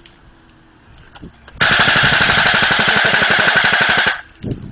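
Airsoft rifle firing one full-auto burst of rapid, evenly spaced shots, lasting about two and a half seconds and starting about a second and a half in.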